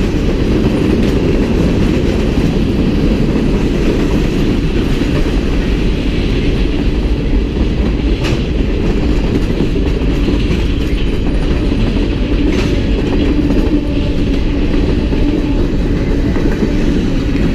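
Freight train cars rolling past at close range: a steady rumble of steel wheels on rail, with a couple of sharper clicks partway through.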